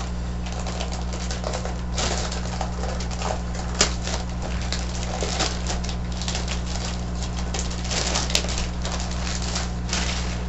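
Crinkling and rustling of a pink plastic bag being handled and pulled off a boxed external hard drive, with scattered clicks and a sharp tap about four seconds in. A steady low hum lies underneath.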